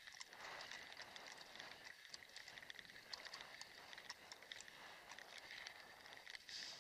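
Kick scooter rolling along a paved lane: a faint, steady rolling hiss from the wheels with many small rattling clicks.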